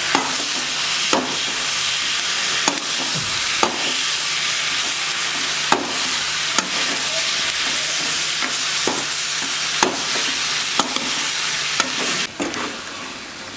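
Chopped tomatoes and onions sizzling in hot oil in a metal pan, stirred with a metal ladle that knocks against the pan about once a second. The sizzle drops quieter near the end.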